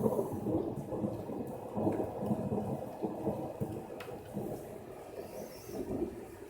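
Thunder rumbling low and fading away as the roll dies down.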